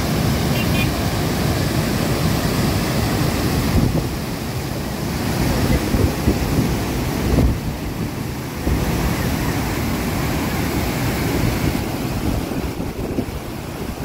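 River water pouring through the open sluice gates of a dam and churning below them, a steady loud rush, with wind buffeting the microphone.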